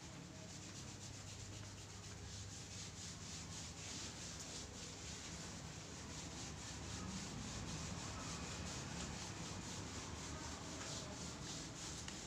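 Eraser being rubbed across a whiteboard in a steady run of quick back-and-forth wiping strokes, several a second.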